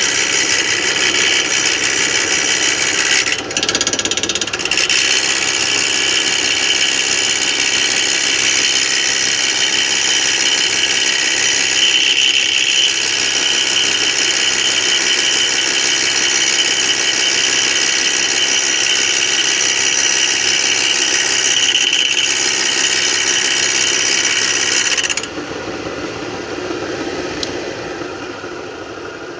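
Lathe running with a homemade four-jaw chuck spinning, a steady motor whine with several steady tones. About 25 seconds in it drops sharply in level and then slowly fades.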